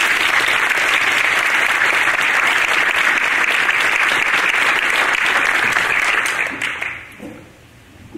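Audience applauding steadily, then dying away about seven seconds in.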